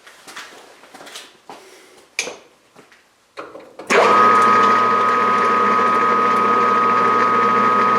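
A few handling clicks and knocks, then about four seconds in a metal lathe is switched on and its motor and gearing run steadily with a constant whine.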